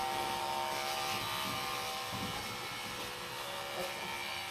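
Electric dog grooming clippers running steadily while trimming a Bichon Frise's coat.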